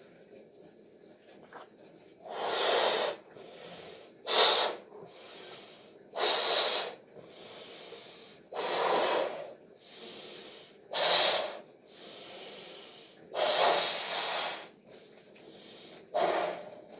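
A person's breaths while blowing up a latex balloon by mouth: seven loud breath sounds about two seconds apart, with quieter breaths between them.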